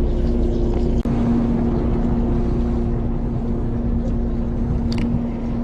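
Fishing boat's engine running with a steady drone, with a short sharp click about five seconds in.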